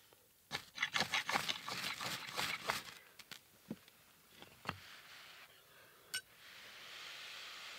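A quick run of sharp clicks and scrapes from things being handled among the stones and sticks of a fire ring, then a few lone clicks, and a soft steady hiss near the end.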